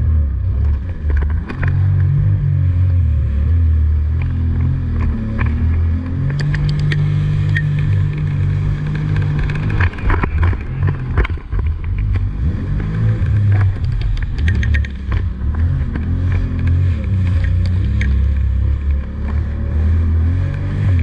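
Jet ski engine running at speed, its low note stepping up and down a few times, mixed with wind on the microphone and occasional slaps of water against the hull.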